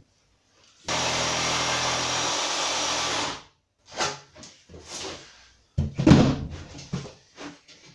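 Jigsaw cutting through a kitchen worktop at a corner of the hob cut-out: it runs steadily for about two and a half seconds, then stops and winds down. Scattered knocks follow, with one heavy thump about six seconds in.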